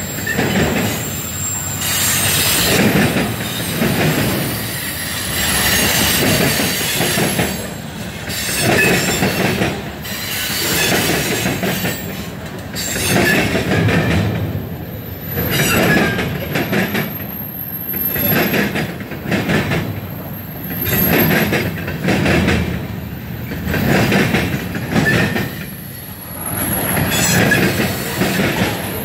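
Union Pacific manifest freight train rolling past: steel wheels clattering over the rail joints, the noise swelling and dipping every couple of seconds as each car's trucks go by, with a thin high wheel squeal at times.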